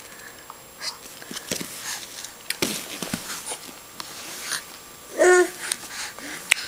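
A baby's short squeal about five seconds in, the loudest sound, with scattered small clicks and knocks before it.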